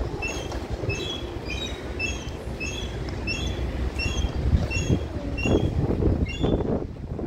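Outdoor ambience by the water: a steady low rumble with a short, high chirping call repeated about twice a second, and a few rough, louder calls near the end.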